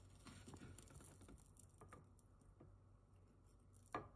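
Near silence: faint room hum with a few soft ticks and one sharper click near the end.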